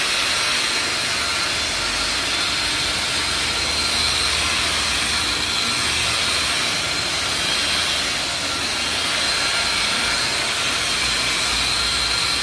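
Electric rotary polisher running steadily with its buffing pad working a car's painted fender: a constant high motor whine over a hiss.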